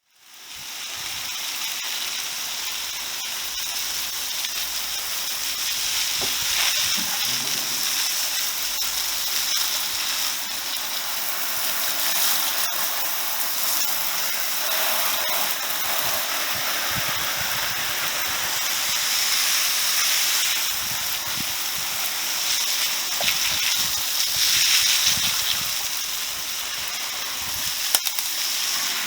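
Gravity-feed shot blaster spraying sodium bicarbonate onto an aluminium cylinder head with compressed air: a loud, steady hiss that swells and dips slightly. There is one sharp click near the end.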